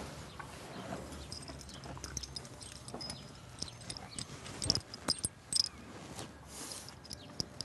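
Draught horses being handled and haltered in a stable: scattered knocks, shuffles and small clinks of halter fittings, with a cluster of sharper knocks about five seconds in.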